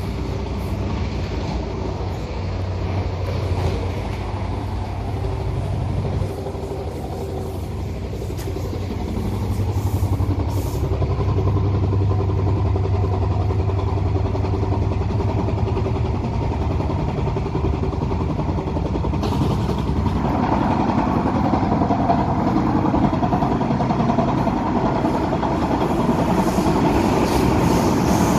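Inside an MTR A-Train electric multiple-unit car running at speed: a steady low rumble of wheels on rail and car-body noise. It gets louder about ten seconds in, and from about twenty seconds in it turns harsher and fuller as the train runs into a tunnel.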